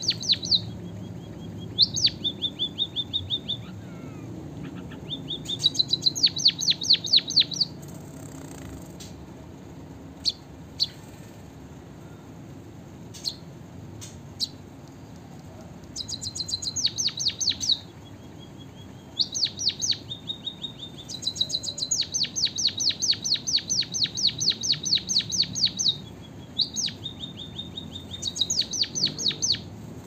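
White-headed munia (emprit kaji) singing canary-style song it has learned: phrases of rapid, evenly repeated high trilled notes lasting one to four seconds. The phrases come in bursts with pauses between, and a few single chirps fall in a quieter stretch in the first half.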